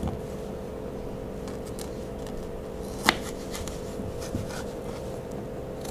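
Kitchen knife slicing a raw green mango on a wooden chopping board: a few sharp knocks as the blade goes through and meets the board, the loudest about three seconds in, over a faint steady hum.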